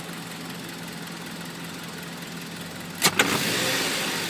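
Mazda 6 GH engine idling steadily, the engine that its owners say has a knock. About three seconds in come two sharp clicks, then a louder hiss that slowly dies down.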